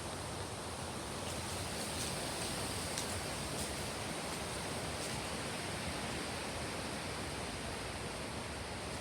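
Wind blowing steadily, a broad even rush with no let-up.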